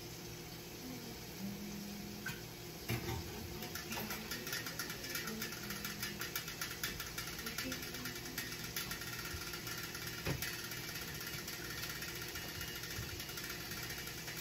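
Pork frying without oil in a covered Salad Master stainless steel pan: a rapid, fine crackling that sets in about three seconds in and keeps going, the sign that the meat has started to cook. A single knock about ten seconds in.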